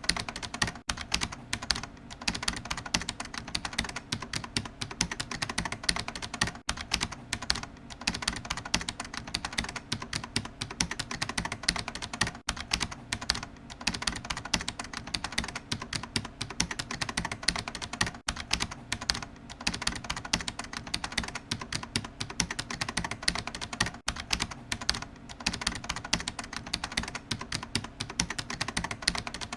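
Computer keyboard being typed on fast and without let-up, a dense run of key clicks with only a few brief pauses.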